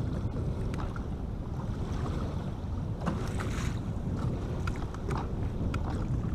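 Wind buffeting the microphone in a steady low rumble, with small waves lapping and splashing against an aluminium boat's hull now and then, mostly in the second half.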